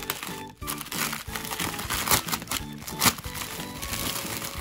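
Plastic poly mailer bag crinkling as it is pulled open by hand, with sharp crackles loudest about two and three seconds in, over background music.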